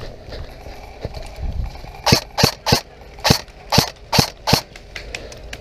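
Airsoft rifle firing seven single shots in quick succession, about three a second, starting about two seconds in.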